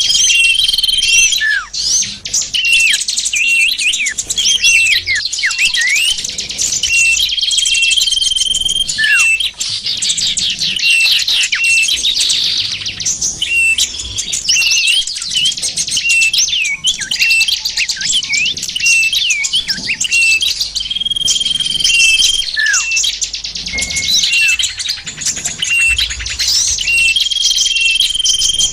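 Bird-lure recording of many small songbirds chirping and calling at once: a dense, overlapping chorus of high twitters, short whistles that slide downward, and now and then a briefly held high note.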